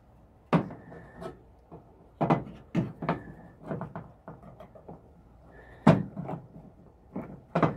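Screwdriver tip clicking and scraping against the metal retaining clip of a Ford tailgate lock cylinder and its plastic handle housing as the clip is pried out: a string of irregular sharp clicks and small knocks, the loudest about six seconds in.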